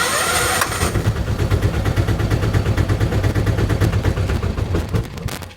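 Diesel auto rickshaw engine cranked by its starter, catching at once and running with a steady, fast diesel knock, fading near the end. It is starting at the first attempt, the hard-starting fault cured by a replaced camshaft.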